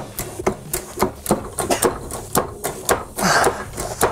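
Hand-lever HydraForce water pump being worked hard and fast, its lever and valves clicking and knocking about four times a second. It is pressurising a water-filled two-stroke expansion chamber to force out the dents.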